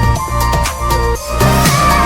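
Electronic dance music with a steady beat; the beat drops out briefly just past the middle and comes back with a rising swell.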